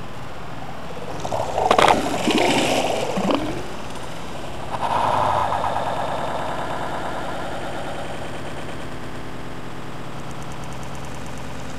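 Water splashing and sloshing at the side of the boat as a sturgeon thrashes its way back into the water. There is a louder, choppy burst of splashing in the first few seconds and a shorter one about five seconds in, over a steady rushing background.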